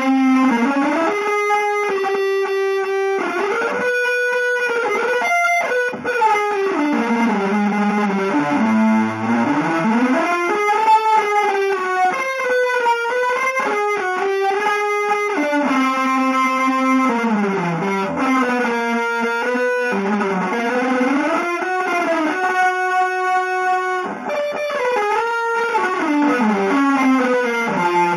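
Electric guitar playing a single line of long held notes that slide up and down between pitches, with only brief breaks between phrases.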